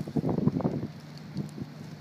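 Wind buffeting the microphone in rough gusts for about the first second, then dropping away to leave a steady low hum in the background.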